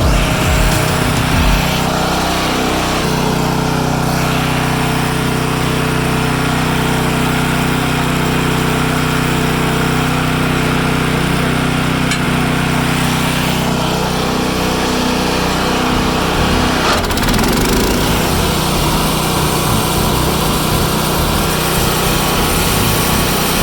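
Wood-Mizer LT15START portable band sawmill running steadily on its small engine, its note shifting slightly about two-thirds of the way through.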